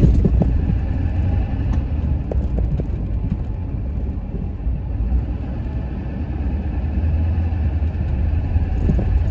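Pickup truck on the move, a steady low engine and road rumble.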